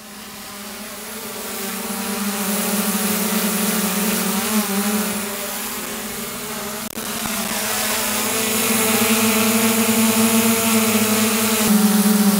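Small DJI Mini quadcopter drone hovering: a steady propeller buzz that grows louder over the first few seconds, its pitch shifting slightly near the end.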